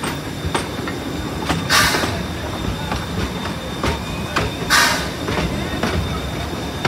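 Small park steam train on the move: the wheels rumble steadily and click over rail joints, and the locomotive gives two hissing bursts of steam about three seconds apart.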